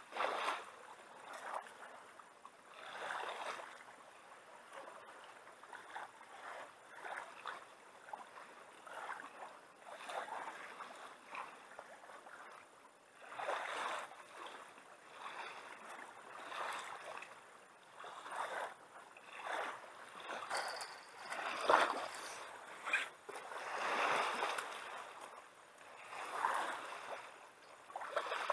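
Small waves lapping and washing onto a sandy river shore, each wash rising and fading every one to three seconds, with a single sharper knock about two thirds of the way through.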